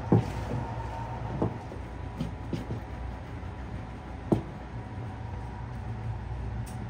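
Wooden rice paddle knocking and scraping against a wooden sushi-rice tub (hangiri) as freshly cooked sushi rice is mixed and spread to dry it. A few sharp knocks, the loudest at the start and about four seconds in, over a steady low hum.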